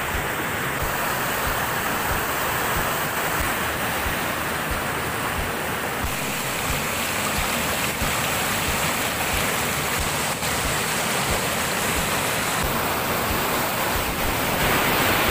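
Whitewater river rapids rushing over boulders: a steady, loud wash of fast-flowing water.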